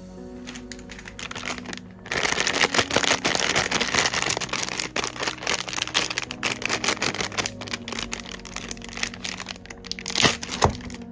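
Plastic packaging crinkling and rustling as it is handled and torn open: a dense run of irregular crackles starts about two seconds in, with a couple of louder crackles near the end.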